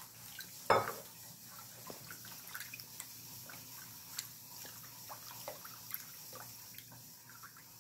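A hand swirls salt through water in a stainless steel bowl, dissolving it into brine for salting leaf mustard. The water sloshes lightly with small irregular splashes and drips, and one louder splash comes about a second in.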